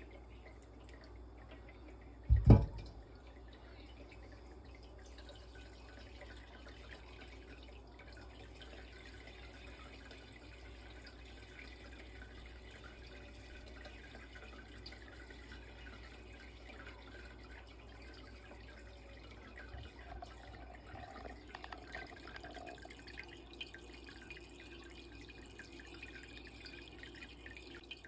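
Melted tallow draining, a faint steady dripping and trickling, with one loud thump about two seconds in.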